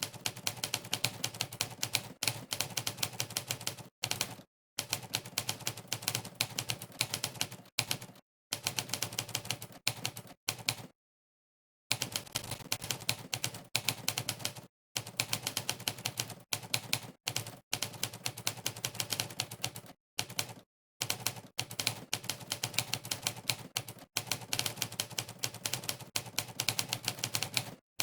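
Monkeytype's typewriter keystroke sound effect, one sampled typewriter key strike per keypress, clicking several times a second in quick typing runs. The runs break off several times for short pauses of complete silence, the longest about a second long just before the 12-second mark.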